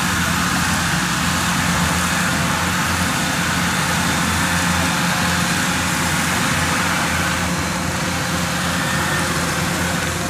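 Engine of a small tracked carrier loaded with rice sacks, running at a steady speed as it drives along.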